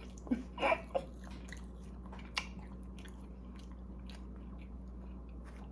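A person chewing a mouthful of food, with faint scattered mouth clicks and a short murmur about half a second in.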